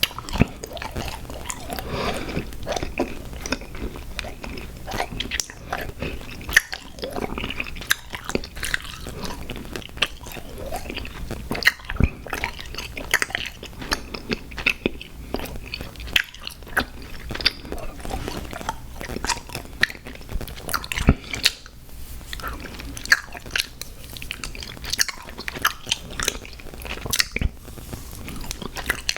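Close-miked chewing and biting of sour gummy worms cereal, with irregular sharp crunches and moist chewing throughout.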